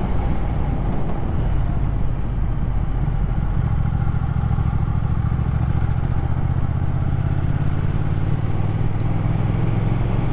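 Motorcycle engine running at road speed with wind rush over the onboard microphone; the engine's low note grows stronger about three and a half seconds in.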